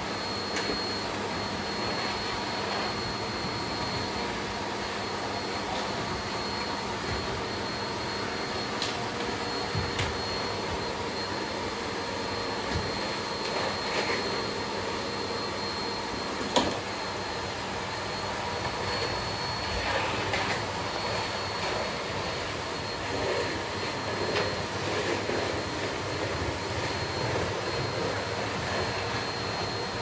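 Bosch BGS21X320 bagless cylinder vacuum cleaner running steadily, a high motor whine over the rush of air through the floor nozzle, with a few short knocks along the way.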